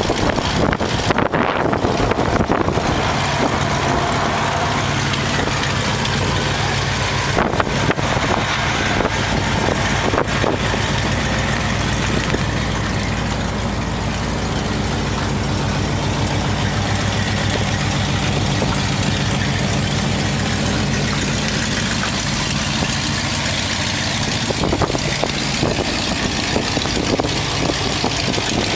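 The Ford 302 V8 of a 1951 Ford F-1 pickup idling steadily.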